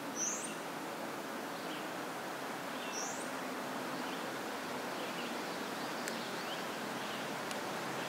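Two short, high, rising bird chirps about three seconds apart, with a few fainter chirps over a steady background hiss.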